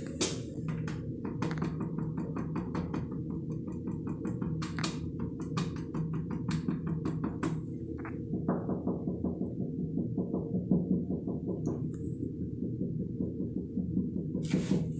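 Tapping on assorted objects for ASMR: many quick light taps in runs and flurries, over a steady low hum.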